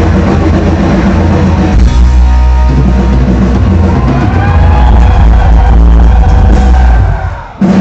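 Heavy metal band playing live, very loud and dense with heavy bass, the music dropping out for a moment near the end before crashing back in.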